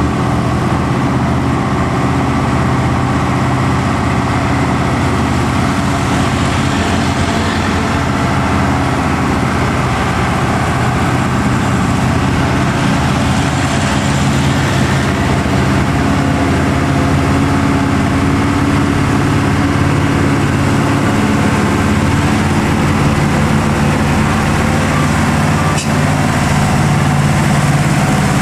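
Heavy diesel engine of a Nissan Diesel dump truck pulling steadily at low speed up a steep grade, with a steady low drone throughout. Near the end there is a single short click.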